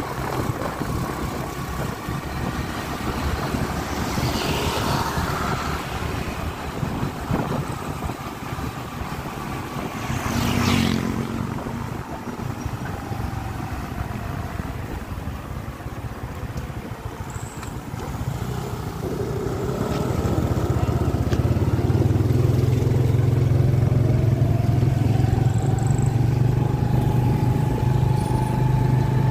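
Motorcycle engine and road and wind noise while riding along. There is a brief louder rush about ten seconds in. The engine gets louder and steadier about two-thirds of the way through, with a slowly rising whine near the end.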